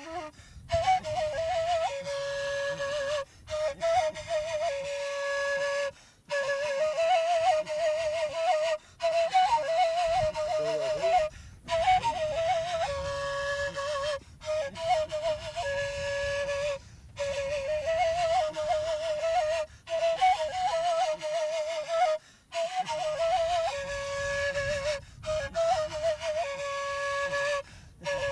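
Solo wind instrument playing a trilled, ornamented melody that moves between two close pitches, in short phrases about every two and a half to three seconds, each broken off by a brief pause.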